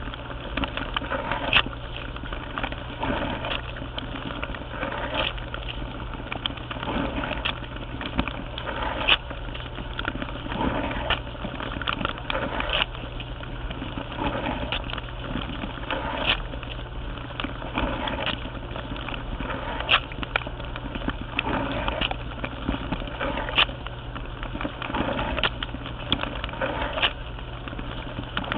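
Dishwasher running on a wash cycle, heard from inside the tub: a steady low hum of the wash pump under spraying, sloshing water, with sharp splashes hitting the camera about every two seconds.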